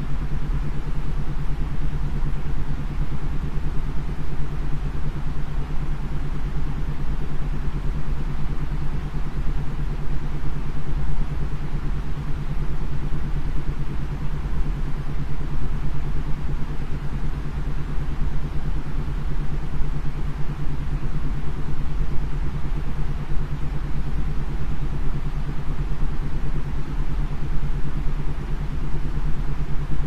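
Steady white noise, heavy in the low end, with a low isochronic tone beneath it pulsing about eight to ten times a second.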